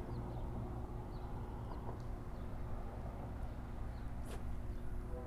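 A steady low motor hum, with faint short bird chirps scattered over it and a single sharp click about four seconds in.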